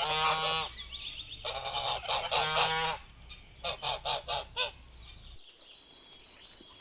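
Geese honking: loud bouts of repeated honks for the first three seconds, then about five short calls around four seconds in. Near the end a faint, steady, high-pitched buzz takes over.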